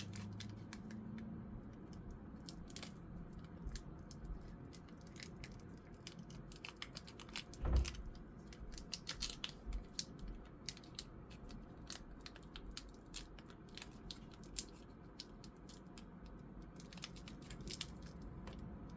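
Foil booster-pack wrappers crinkling and crackling in short, scattered bursts as the packs are handled and opened, with one louder knock about eight seconds in.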